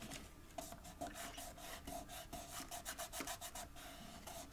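Fingers rubbing and pressing on a cardstock gift box as its glued base is pressed down so the glue tabs grab: a faint, quick run of short scratchy rubs.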